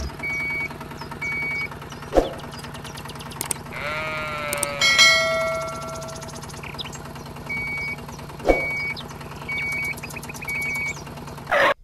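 A sheep bleats once, a long wavering call about four seconds in. Under it run a steady low hum and short high electronic beeps that repeat in pairs, with a sharp click twice.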